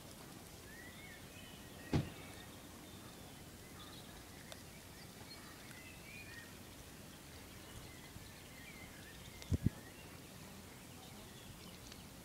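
Quiet outdoor ambience: small birds chirp and twitter faintly in the background over a steady low hiss. A dull thump comes about two seconds in and a quick double thump near ten seconds.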